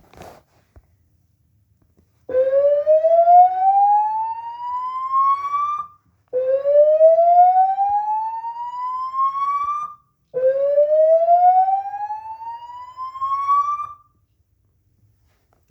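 Three rising whoop tones from a Notifier AFP-400 voice evacuation message, the slow-whoop evacuation signal sounded between repeats of the spoken announcement. Each whoop sweeps upward for about three and a half seconds, with a short gap before the next.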